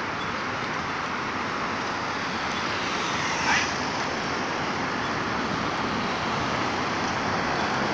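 Steady outdoor background noise, like distant road traffic, with a single brief high squeak about three and a half seconds in.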